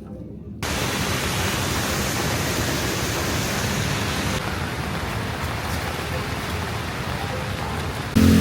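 Steady heavy rain, a dense even hiss that starts abruptly about half a second in and turns slightly duller around the middle.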